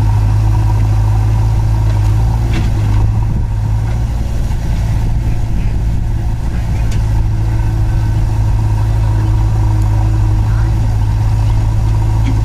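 Diesel engines running steadily at idle: the Mahindra Arjun 555 DI tractor's four-cylinder diesel close by, with the JCB backhoe loader's engine behind it as it loads soil into the trolley.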